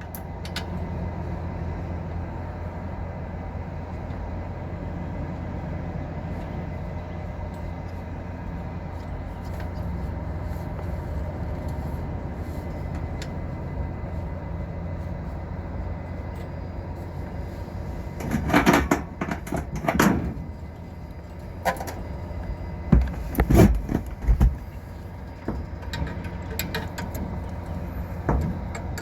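A steady low machine hum throughout, with bursts of clattering knocks about two-thirds of the way in and a smaller knock near the end.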